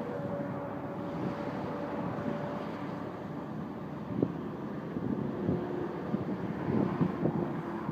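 A vehicle running, heard as a steady noisy rumble with a faint hum that drifts lower in pitch, and a few short knocks in the second half.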